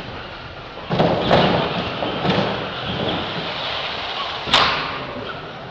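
R/C monster trucks running over wooden ramps: a heavy thud about a second in, a few smaller knocks, then a sharp crash about four and a half seconds in as a truck lands off a jump.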